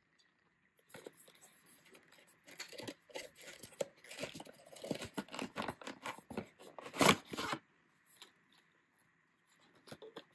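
A cardboard retail box being opened by hand and a clear plastic packaging tray pulled out: a run of rustling, scraping and crackling, loudest in a sharp crackle about seven seconds in, then quiet with a few light taps.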